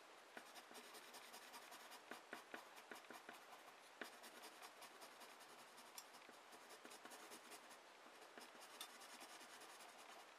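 Faint scratching of an ordinary wooden graphite pencil shading on paper, in many quick short strokes.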